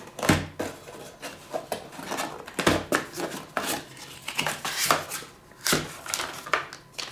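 Cardboard camera box and its inner packaging being handled: flaps and the insert rustling, scraping and clicking irregularly, with three dull knocks against the wooden table.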